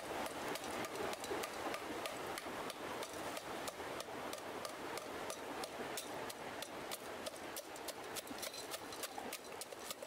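A thick wooden stick pounding charcoal chunks and dried leaves in a stainless steel pot, giving rapid, uneven crunching knocks, several a second.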